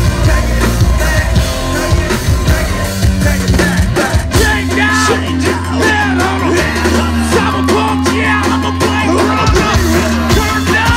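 A live rock band playing loud, an instrumental passage with a steady low bass line under dense guitar and drums.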